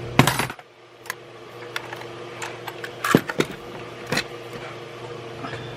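Metal hand tools and sockets clinking and clattering as they are handled and set down in a toolbox. A cluster of clanks comes at the start, then scattered sharp clinks, the loudest about three seconds in, over a steady low hum.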